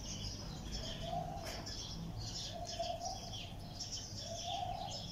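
Birds chirping in many quick high notes, with a lower call of about half a second repeating four times, roughly every second and a half, over a steady low background rumble.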